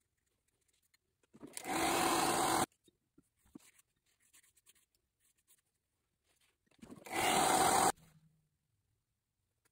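Two bursts of steady rushing air noise from a small electric blower, such as a hair dryer used to dry a watercolour layer. Each runs just over a second and cuts off sharply, the second followed by a brief hum as the motor winds down.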